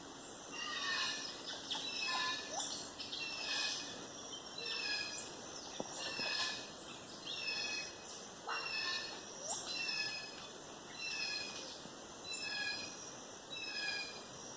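Rainforest birds calling: short high chirps repeating about once a second, with a few longer whistles that sweep downward.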